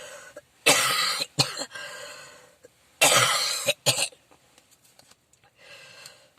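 A man's coughing from a lingering bronchitis that has not cleared, with phlegm still in his chest: two hard coughs, each followed quickly by a short second one.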